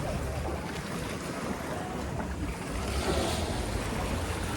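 Wind buffeting the microphone over the wash of sea water around a paraw outrigger sailboat under sail: a steady low rumble and rushing, swelling slightly about three seconds in.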